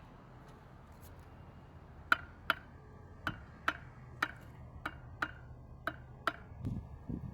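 A steel bricklaying trowel tapping a brick down into its mortar bed: nine sharp, ringing taps, about two a second, followed by a couple of duller knocks near the end.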